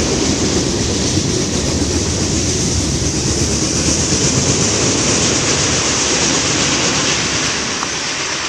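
CSX freight train's tank cars and boxcars rolling past: a steady rumble of steel wheels on the rails, easing off near the end as the last cars go by.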